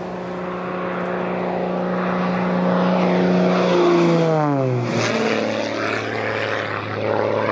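Corvus Racer 540 aerobatic plane's six-cylinder piston engine and propeller making a close pass: the note grows louder as it approaches, drops sharply in pitch as it goes by about four to five seconds in, then runs on at a lower pitch as it moves away.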